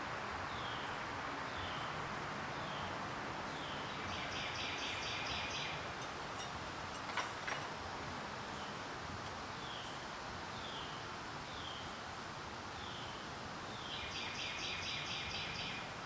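Bird calling over steady outdoor background noise: a short falling chirp repeated about twice a second, twice broken by a quick rattling phrase of rapid notes. Two sharp clicks about seven seconds in.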